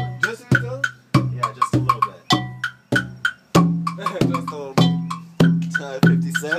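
Hand drums played together in a drum circle: a deep drum struck on a steady beat a little under twice a second, each stroke ringing low, with sharper, higher hits in between.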